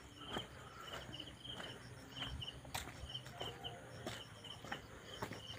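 Footsteps on a dirt path, with scattered short knocks, over a steady high chirping repeated in short runs about twice a second.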